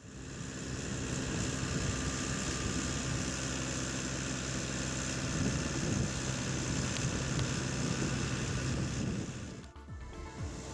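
Farm tractor's diesel engine running steadily under load, fading in at the start and dipping briefly near the end.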